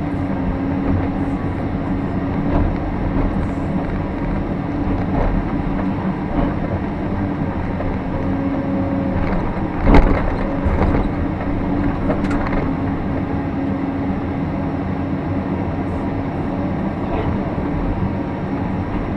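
Caterpillar 349 excavator's diesel engine and hydraulics running steadily under working load, heard from inside the cab. A single loud clank about halfway through.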